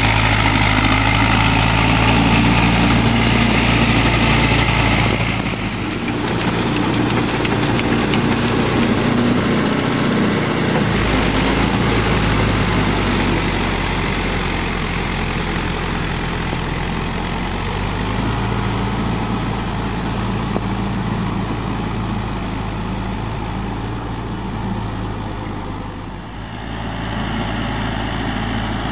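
Mahindra Yuvo 575 tractor's four-cylinder diesel engine running steadily under load while driving a rotary tiller through flooded paddy mud. Its tone shifts abruptly about five seconds in and again near the end.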